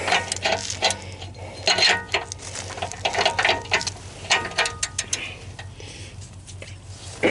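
A ratchet wrench clicking in short, irregular runs, with metal-on-metal knocks of the socket, as it works on a stuck oxygen sensor. A steady low hum runs underneath.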